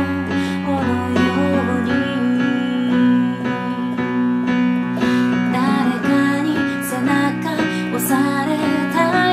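A woman singing, accompanied by chords played on a Roland FP-50 digital piano.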